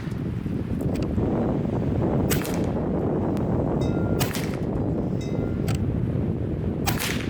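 Hatsan Neutron Star .22 PCP air rifle firing: three sharp shots about two seconds apart, with fainter clicks in between. Steady wind buffets the microphone as a low rumble throughout.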